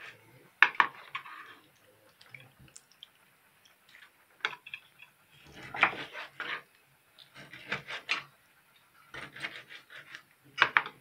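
Kitchen knife slicing raw liver and striking a plastic cutting board: short runs of quick knocks every second or two, with quiet pauses between the runs.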